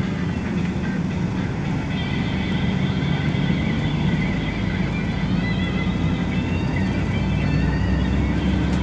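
Cabin noise of a moving express commuter bus: steady engine and road rumble, the low rumble growing a little near the end.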